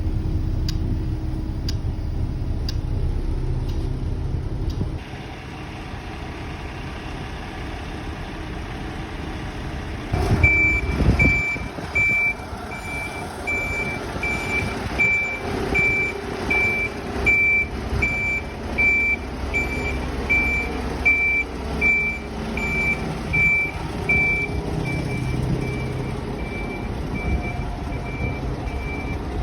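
Volvo B8L MCV EvoSeti double-decker bus with its diesel engine running. About a third of the way in, a high-pitched warning beeper starts up and keeps beeping at an even pace, a little under twice a second, without stopping.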